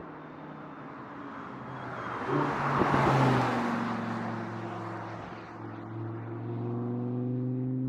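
Audi R8 driving past. The sound swells with tyre and engine noise to a peak about three seconds in, then the engine carries on with a steady note that rises slowly.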